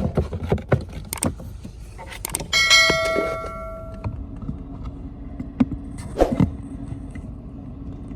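Clicks and knocks of hands working on metal and plastic parts, then a metal piece rings out for about a second and a half, like a tool or part struck or dropped. A few more knocks follow, over a steady low hum.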